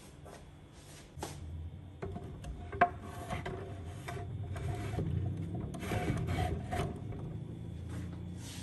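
Objects being handled on a wooden shelf: rubbing and scraping with light knocks, and one sharp click about three seconds in.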